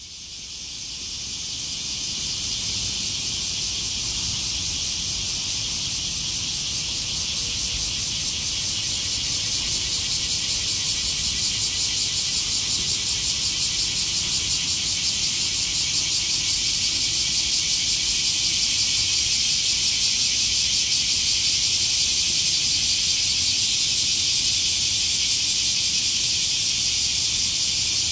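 Cicadas singing in a dense, unbroken chorus, a shrill high buzz with a fast pulsing texture that fades in over the first couple of seconds and then holds steady.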